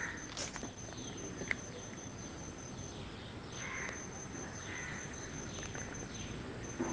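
Faint bird calls in the background, a few short calls about a second apart, over a steady high-pitched whine that drops out briefly twice.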